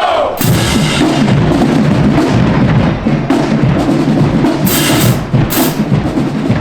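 Marching band drumline playing a dense, driving cadence on bass drums and snares, with cymbal crashes just after the start and twice near the end.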